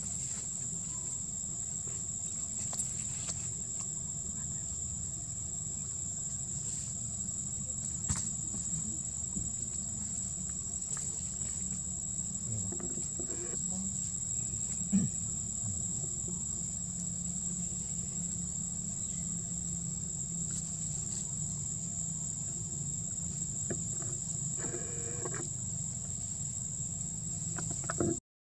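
Steady drone of insects, one unbroken high-pitched whine, over a low outdoor rumble. There are a few faint clicks and one sharp knock about halfway through, and the sound cuts out briefly near the end.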